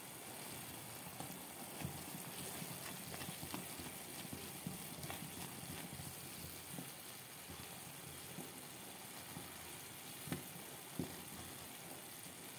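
Jaggery melting in ghee and water in a pan, bubbling and sizzling faintly as it is stirred with a spoon, with a few light taps of the spoon against the pan, including two near the end.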